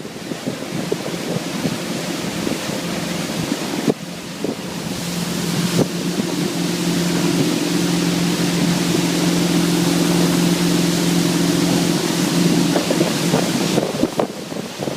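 Motorboat running, with wind rushing over the microphone and water noise. A steady engine drone rises about five seconds in, holds, and fades away shortly before the end.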